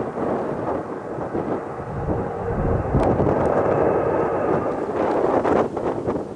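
Jet engines of an Airbus A350-900, its Rolls-Royce Trent XWB turbofans, at go-around thrust as the airliner climbs away overhead: a steady, deep rumble that grows louder about two and a half seconds in.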